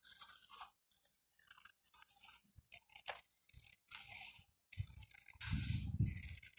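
Scissors cutting through a sheet of paper: a run of irregular crisp snips and crunches, louder and fuller about five seconds in.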